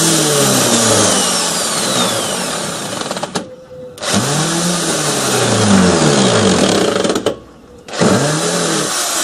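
Power drill running in three bursts of about three seconds each, separated by short pauses. Its motor pitch sags and recovers as it works under load.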